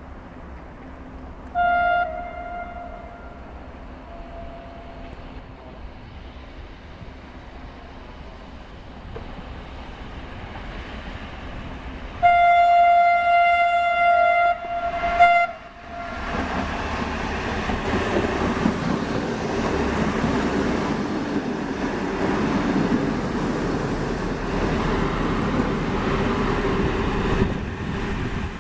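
ALn 668 diesel railcar sounding its horn: a short blast about two seconds in, then a long blast about ten seconds later. It then draws closer, its diesel engine running and its wheels rolling on the rails as it pulls into the station.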